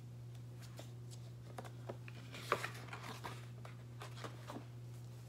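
Faint rustling and light taps of the pages of a large picture book being turned and handled, a little louder about two and a half seconds in, over a steady low hum.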